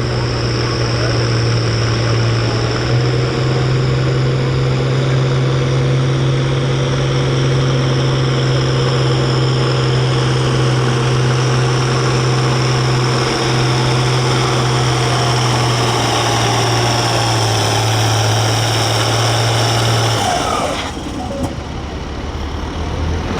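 Farm stock diesel tractor pulling a weight sled, its engine running steadily at full throttle under heavy load. About twenty seconds in, the engine note drops off sharply as the throttle comes off at the end of the pull.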